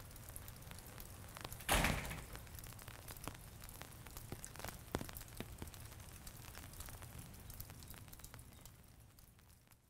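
A door shutting with one short, sudden noise about two seconds in, over a faint crackly background of scattered ticks that fades away near the end.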